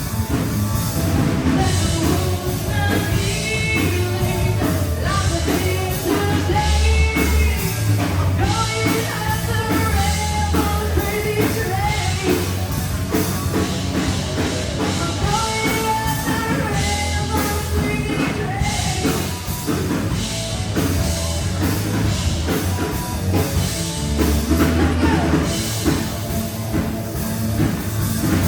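Rock song with a singing voice, drums and bass playing steadily.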